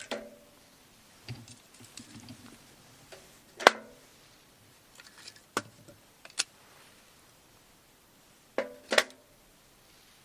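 Scattered sharp clicks and light knocks of small hard objects being handled, about seven in all, the loudest a little under four seconds in and a close pair near the end.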